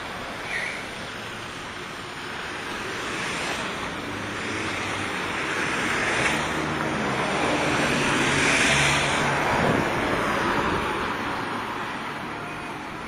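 Traffic noise with a motor vehicle passing: a steady rushing sound with a low engine hum that swells to a peak a little past the middle, then fades.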